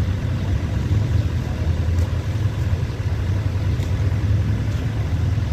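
Vehicle engine idling close by, a steady low rumble.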